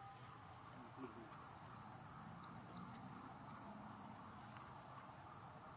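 Faint, steady, high-pitched drone of insects in the surrounding vegetation.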